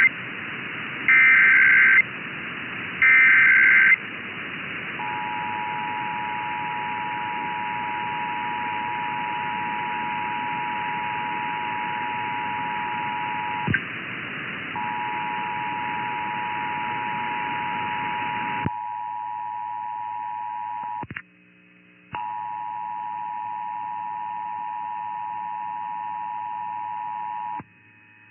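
Emergency Alert System test received over the radio: two short, harsh bursts of SAME header data, then the EAS two-tone attention signal, a steady two-pitch tone (about 853 and 960 Hz) held for long stretches with two brief breaks. Radio hiss lies under it and drops away about two-thirds of the way through.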